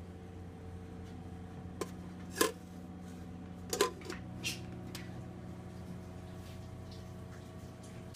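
A few light metal clinks of stockpot lids and serving spoons, the loudest about two and a half and four seconds in, over a steady low hum.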